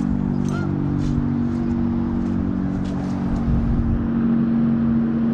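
A motor engine running steadily, a low even hum that holds one pitch throughout, with a few faint ticks over it.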